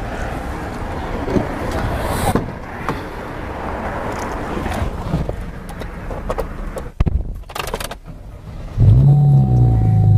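Street traffic noise with passing cars, a few sharp knocks about seven seconds in, then background music with a strong bass line comes in near the end.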